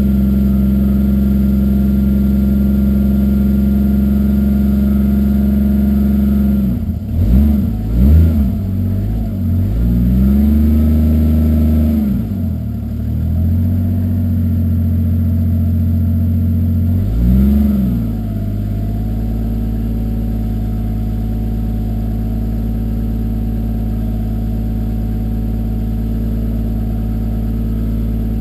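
Toyota 2JZ-GTE straight-six with a single turbo, breathing through a 3-inch catless exhaust with a MagnaFlow muffler, idling steadily, then revved in a few throttle blips from about 7 to 18 seconds in, one held for about two seconds. It then settles back to a steady idle.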